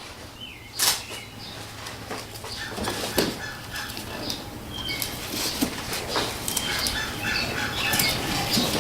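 Tape being pulled off a roll and pressed down by hand: a run of crackling rips and rustles with a sharp snap about a second in.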